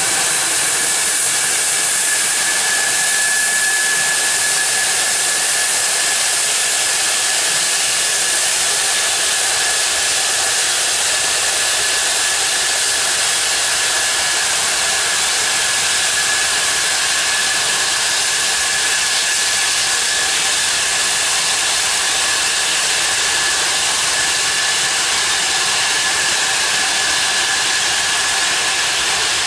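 Four Progress D-18T turbofans of an Antonov An-124 running at taxi power: a steady high whine over a loud, even hiss.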